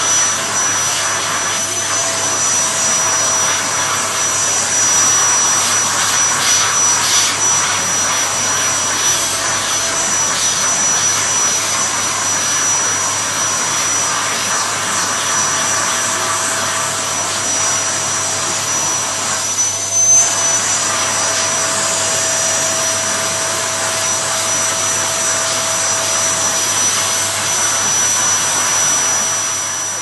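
Vacuum cleaner running steadily with a high whine over its rushing noise. About twenty seconds in, its pitch briefly shifts up with a louder moment.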